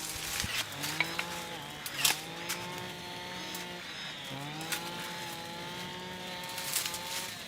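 A small cordless power tool's electric motor spinning up and running steadily twice, about three seconds each time, with a short rising whine as each run starts and a few clicks of handling.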